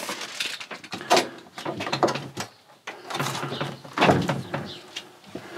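Handling of a new 12 V camper fridge: a run of clicks and knocks with plastic scraping, as of its door and drawers being opened and shut, loudest about four seconds in.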